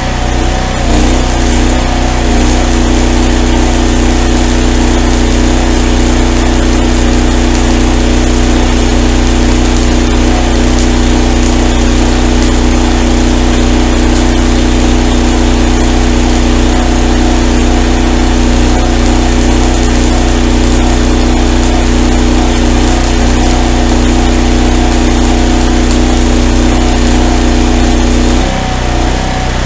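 Engine of a Miller Blue Star 185 engine-driven welder running steadily under weld load while a 5/32 E6011 rod burns. The load comes on about two seconds in, changing the engine's note, and drops off shortly before the end.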